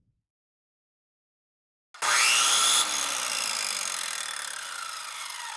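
A power drill whir as a logo sound effect, starting suddenly about two seconds in, loudest for under a second, then winding down with its pitch falling.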